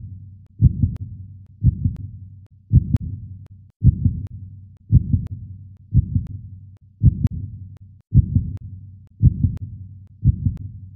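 Heartbeat sound effect: a slow, steady lub-dub of deep double thumps, about one a second.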